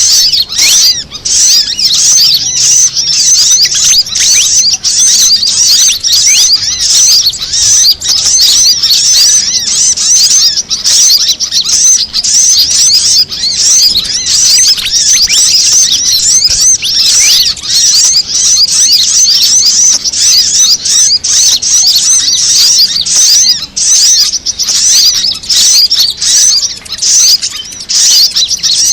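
Bird-lure recording of fantail calls mixed with sunbird calls: a loud, unbroken stream of rapid, high-pitched chirps and short whistled glides, many notes overlapping.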